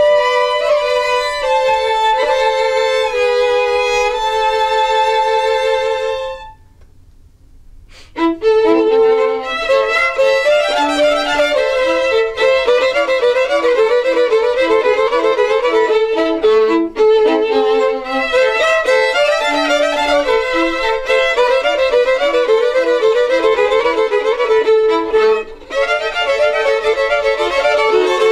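Three violins playing an instrumental piece together: slow held notes, a short pause about six and a half seconds in, then a livelier passage over short repeated low notes.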